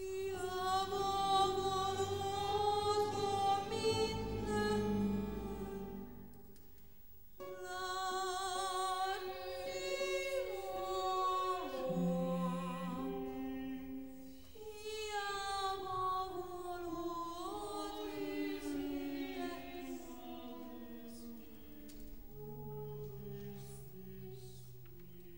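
Modern classical music for voices and chamber ensemble: several long held notes with vibrato, some sliding slowly downward, in three phrases broken by short pauses about seven and about fourteen seconds in.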